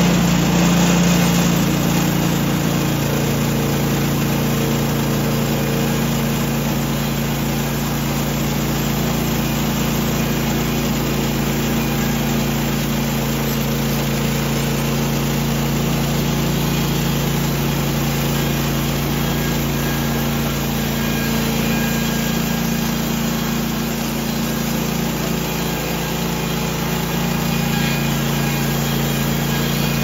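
Gasoline engine of a portable bandsaw sawmill running steadily under load while the band blade cuts lengthwise through a log.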